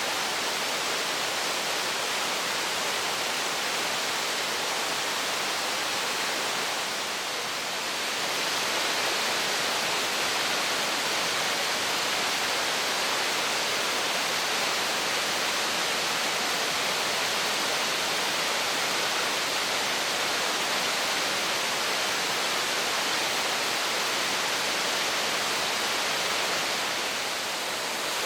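A tall three-tiered waterfall pouring, a steady dense rush of falling water. It turns briefly softer about seven seconds in and again near the end.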